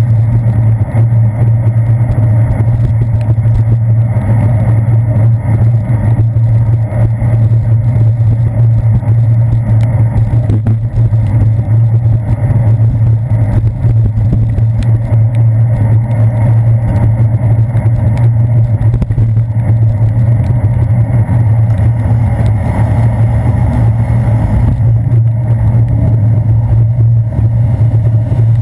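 Loud, steady low rumble of wind and road vibration picked up by a handlebar-mounted GoPro Hero 2 on a moving bicycle.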